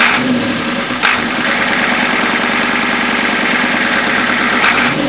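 Ford 7.3 IDI V8 diesel in a 1979 F250 idling steadily, still cold just after a cold start. Two short clicks come through, about a second in and near the end.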